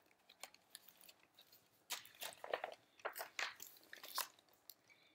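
Faint rustling and crackling of paper as a picture book's page is turned and the book handled, a scatter of small crackles from about two seconds in.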